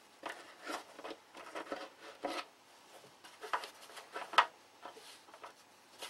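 Light handling noise from needle-nose pliers and fingers working a bell crank and its wires inside a balsa model-airplane wing: irregular small scrapes and clicks, with one sharper click about four and a half seconds in.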